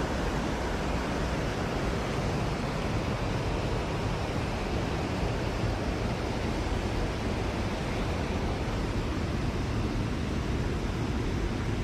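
Mountain stream water rushing, a steady, even noise.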